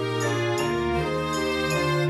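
Instrumental background music: sustained melodic notes over a held bass line, with light chiming accents.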